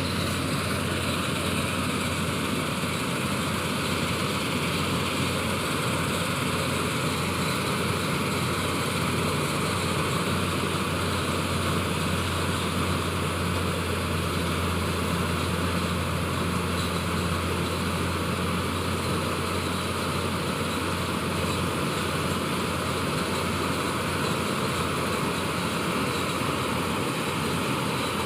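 Malkit combine harvester's engine and machinery running steadily with a constant low hum and a dense mechanical noise over it.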